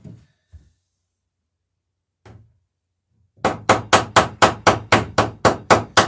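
A few light taps, then from about three and a half seconds in a rapid, even run of hammer blows, about five a second: a hammer peening over a rivet that fastens the lapped planking of a wooden dory.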